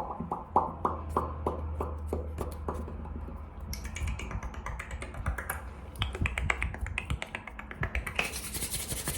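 Rapid finger snapping in quick succession, speeding up and getting brighter about halfway through. Near the end it gives way to the hiss of palms rubbing together.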